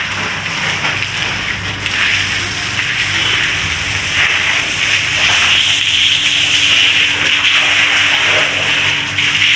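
Steady hissing noise with a low hum underneath, continuous and fairly loud.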